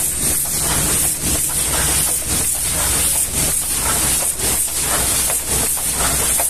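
Pressure washer jet hissing steadily as it blasts mud off a truck trailer's tarpaulin curtain side, with a steady low hum underneath.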